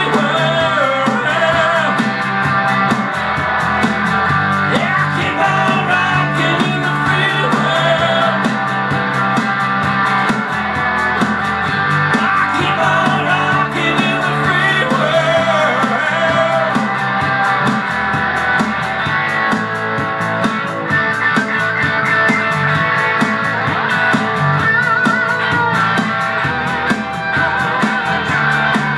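Live rock-and-roll with a man singing over his own amplified electric guitar, playing continuously.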